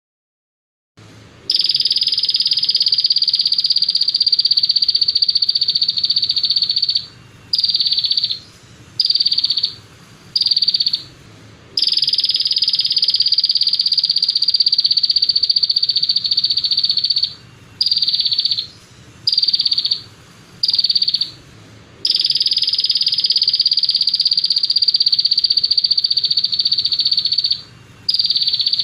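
A songbird's fast, buzzing trill played as a masteran recording: a long unbroken trill of about five seconds, then a few short bursts under a second each, then another long trill and more short bursts.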